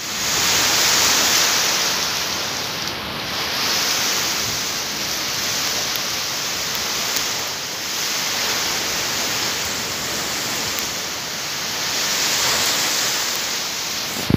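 Typhoon rain and wind: a steady roar of heavy rain, swelling and easing every few seconds with the gusts.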